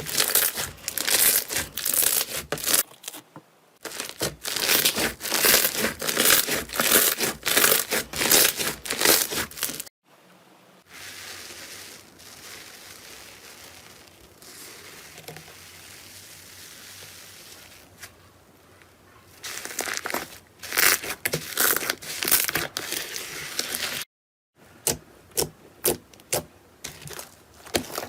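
Slime being pressed and stretched by hand, with dense, fast crackling and popping clicks. In the middle the clicks give way for several seconds to a softer, steady hiss, then they return.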